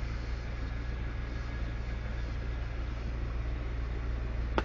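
Volvo semi tractor's diesel engine running steadily, heard inside the cab as a low rumble, with one sharp click near the end.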